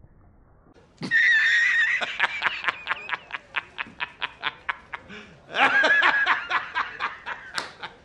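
A man's loud laughing fit: a held high cry that breaks into rapid 'ha-ha-ha' bursts about five a second, twice over.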